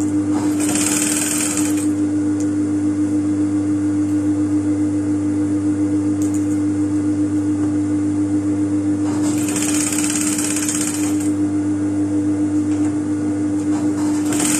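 Industrial lockstitch sewing machine running steadily as it stitches layered fabric, a steady motor hum with an even pulsing of the needle. There are three louder stretches with an added hiss: about a second in, around the middle-to-late part, and near the end.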